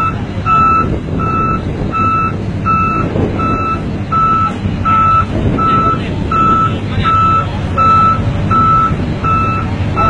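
Sakai SV-series road roller's diesel engine running under a loud backup alarm, a single high beep repeating evenly about every 0.7 seconds.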